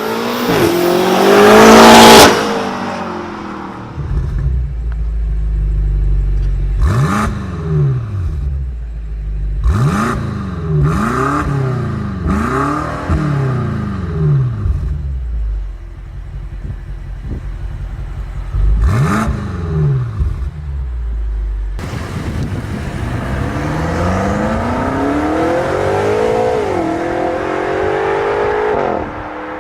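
2018 BMW M5 F90's twin-turbo 4.4-litre V8 exhaust. It opens with a loud rising rev, then settles to a low rumble broken by a run of short throttle blips that rise and fall. Near the end comes a long rising pull, with a brief dip in pitch partway through.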